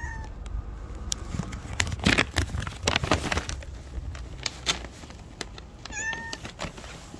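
A cat meowing: a short, high meow at the very start and another about six seconds in. Between them come scattered clicks and rustling noises, loudest around two to three seconds in.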